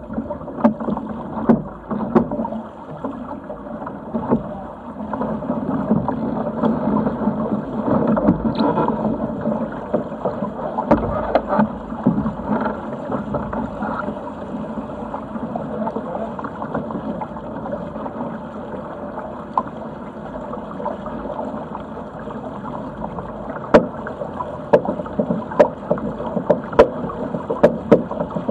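Water rushing along and slapping against the hull of a Sigma 8 metre sailing yacht under way, heard from on board. The rush swells for a few seconds about a quarter of the way in. A quick run of sharp slaps comes in the last few seconds.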